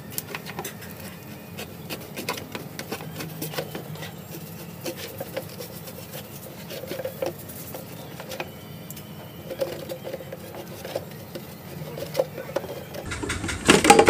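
Thin plastic bottle being cut apart by hand: a steady run of small crackles, clicks and scrapes from the plastic. A louder knock and clatter near the end.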